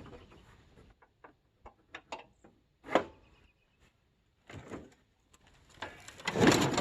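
A series of scattered knocks and clunks, with a sharper knock about three seconds in and a louder, denser clatter near the end.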